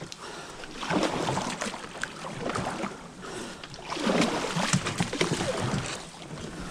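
Water sloshing and splashing in two spells, one starting about a second in and a louder one about four seconds in.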